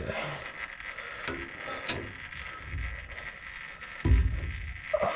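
Scattered metallic clicks and knocks as a differential carrier is worked loose from a GM 10-bolt axle housing by hand and pry bar, with a heavier low clunk about four seconds in.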